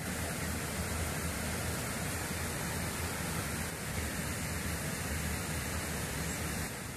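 Steady hiss of rain falling on the river and the bankside vegetation.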